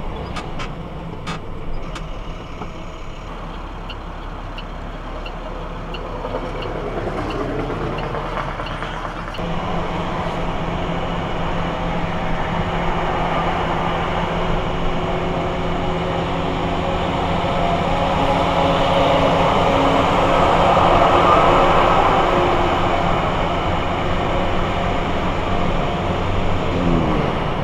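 Engine and road noise heard inside a moving car's cabin, quieter at first with a light ticking about twice a second, then a louder steady rush of tyres and engine at highway speed that swells toward the middle and eases near the end.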